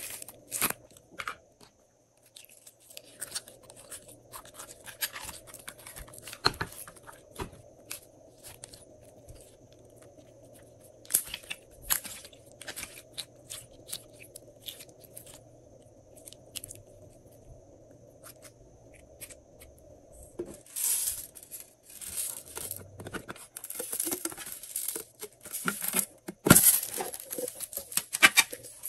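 Slime being squeezed and worked in plastic piping bags: irregular sticky crackling, clicking and crinkling, busier and louder in the last third.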